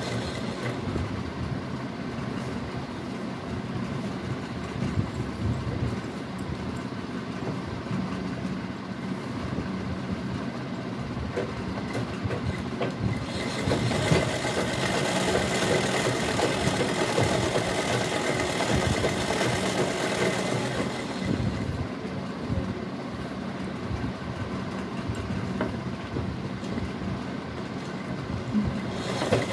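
Merritt sewing machine running steadily as it stitches gathered cloth onto a waistband, the needle mechanism clattering along without pause. For several seconds in the middle its sound turns brighter and hissier.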